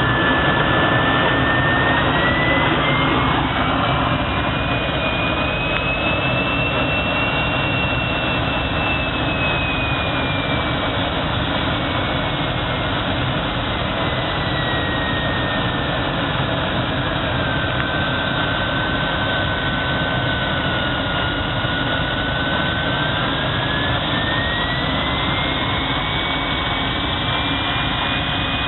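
Automatic profile blasting machine running, blasting with corundum grit while a long profile feeds through on its conveyor belt. It makes a loud, steady rushing noise, with a high whistle that slowly rises and falls.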